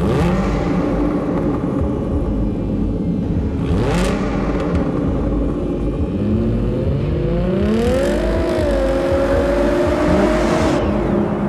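Jaguar F-TYPE sports car engine revving in rising sweeps over a steady hum, mixed with whooshing swells that cut off near the end.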